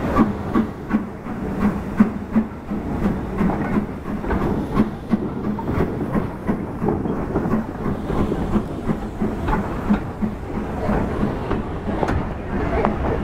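BR Standard Class 9F 2-10-0 steam locomotive rolling slowly past at close range, its wheels and motion making a run of rhythmic clicks and clanks over a steady rumble.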